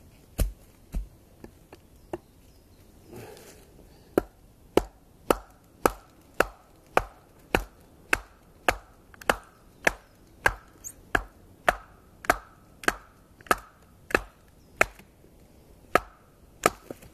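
Busse Combat knife splitting a piece of firewood: sharp blows on wood, a couple at first, then a steady run of about two a second.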